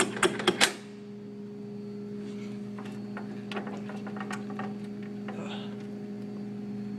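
Drinks vending machine being worked by hand: a quick run of sharp clicks and rattles in the first second, then the machine's steady hum with a few faint clicks, as the stuck bottle fails to come out.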